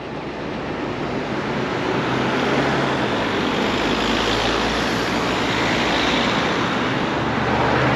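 Road traffic passing close by: cars driving past with a steady rush of tyre and engine noise that builds over the first couple of seconds.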